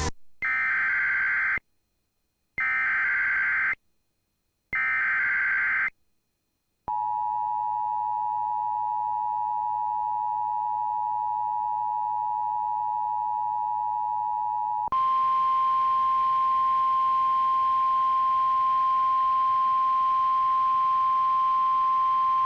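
Emergency Alert System alert tones: three short, shrill bursts of SAME header data about a second apart, then the two-tone attention signal (853 and 960 Hz together) held for about eight seconds, then a single steady tone slightly higher in pitch, the 1050 Hz weather-radio warning tone, over a faint hiss.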